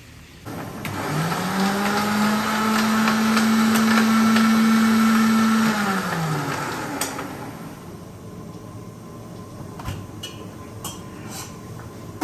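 An electric blender's motor is switched on, spins up to speed and runs steadily for about four seconds, then is switched off and winds down. A few light clicks and knocks follow near the end.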